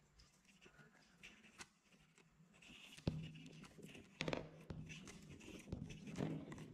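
Colored marbles released from a cardboard chute, rolling along a modeling-clay track and dropping off onto the table. It is faint at first. About three seconds in there is a sharp knock, then a low rolling rumble with repeated clicks and knocks as the marbles land and bounce.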